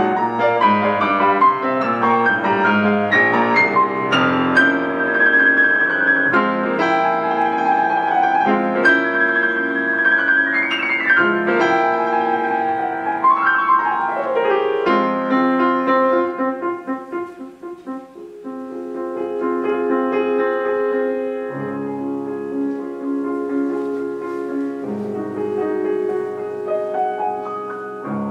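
Solo piano playing a classical-style piece: quick flowing notes, a fast run down the keyboard about halfway through, then after a brief softer moment, slower sustained chords.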